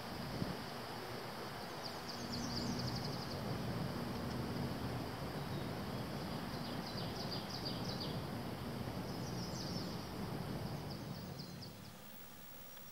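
Wetland outdoor ambience: a steady rushing background with a thin high steady hum, and a bird singing short high trills several times. The background drops and quietens near the end.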